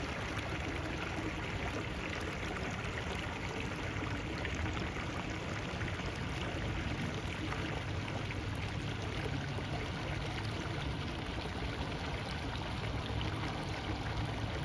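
Water from a fire hydrant sheared off by a vehicle, running in a steady rush along the street gutter.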